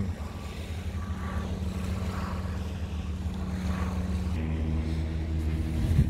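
A steady engine drone, its pitch shifting about four seconds in, over a low wind rumble.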